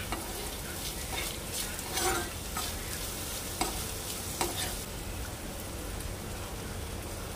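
Onion, green chilli and diced potato sizzling in oil in a non-stick pan while a steel spoon stirs them, with a few sharp knocks of the spoon against the pan.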